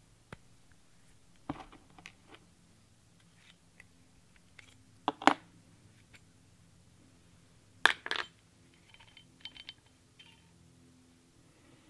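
Small metal parts of a Crosman 761XL air gun clicking and clinking as its metal tube is handled and knocked to free an inner part, with a sharp knock about five seconds in and a double knock about eight seconds in.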